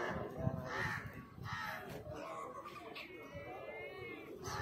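Crows cawing repeatedly in rough, ragged calls, with a longer wavering, higher-pitched call about three seconds in.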